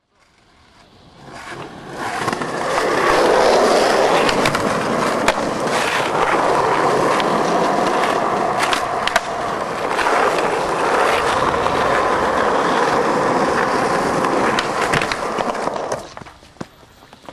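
Skateboard wheels rolling on concrete: a steady, loud rumble that fades in over the first two seconds, with a few sharp clacks of the board now and then. The rolling drops away about a second before the end.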